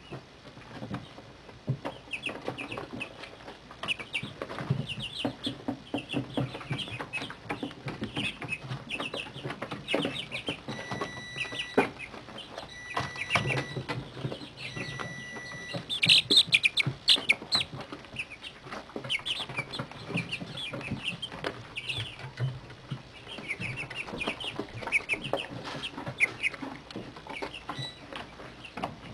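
A brooder full of 30-day-old chicks peeping and chirping, many short high calls overlapping, with a louder flurry a little past the middle.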